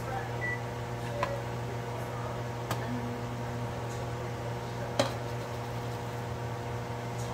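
Steady mechanical hum of a kitchen appliance, with a few light clinks of a utensil, the sharpest about five seconds in.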